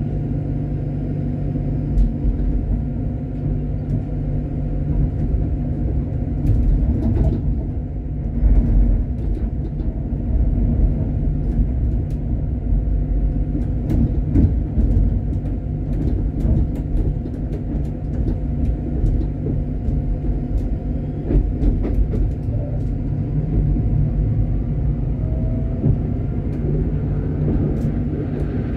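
Tram running along the track, heard from inside the driver's cab: a steady low rumble of wheels on rail with a motor hum, and scattered clicks and knocks as it rolls over the rails.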